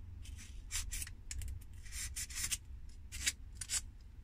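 Utility-knife blade cutting through polystyrene foam: a series of short, irregular scraping strokes as the blade is drawn through the foam.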